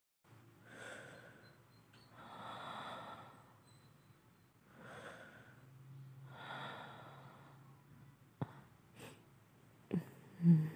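A voice actor breathing slowly and deeply into a close microphone, four long breaths as if asleep, followed near the end by a few soft clicks and a short low grunt.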